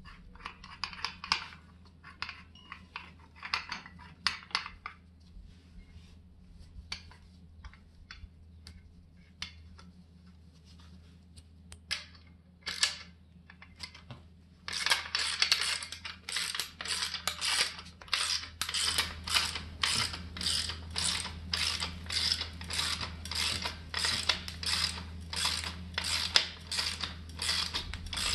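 Ratchet wrench clicking as it turns the screw of an Eastwood MacPherson strut spring compressor, compressing the coil spring on a Subaru front strut. Scattered clicks and handling noises at first; about halfway through it settles into steady ratchet strokes, a burst of clicks about twice a second.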